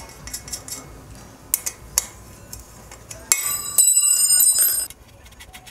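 Light metal clicks of a bolt being threaded by hand into a freshly set rivnut in a bicycle frame tube, then, a little past halfway, a bright metallic ringing that holds steady for about a second and a half and stops sharply.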